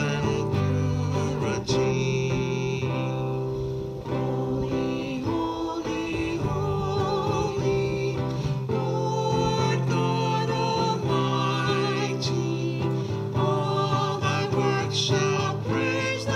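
Acoustic guitar music with sustained low bass notes under it and a wavering melody line on top.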